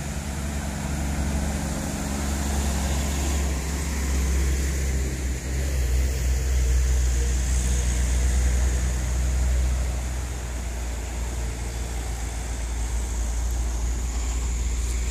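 Diesel engine of a heavily loaded sugarcane truck labouring up a steep grade, a steady low drone that grows louder as the truck draws near.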